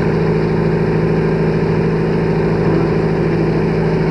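Boat engine running steadily, an even low hum with no change in speed.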